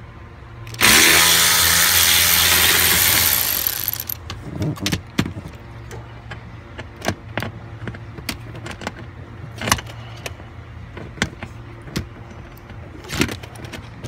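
Cordless drill-driver with a T20 Torx bit running for about three seconds as it spins a screw out of the seat trim, rising in pitch as it starts, then fading out. After that come scattered sharp clicks and knocks from handling the tool and the plastic trim.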